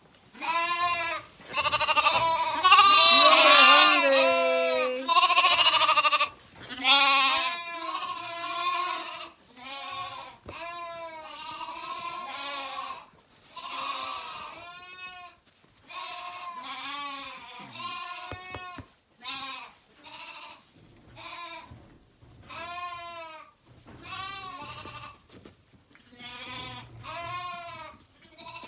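Many Zwartbles lambs bleating, hungry and calling for food. Several lambs call loudly over one another in the first few seconds, then shorter, quieter bleats come every second or two.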